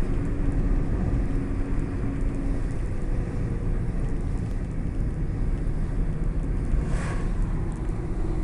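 Car driving, heard from inside the cabin: a steady low rumble of road and engine noise with a faint engine hum. A short rush of noise comes about seven seconds in.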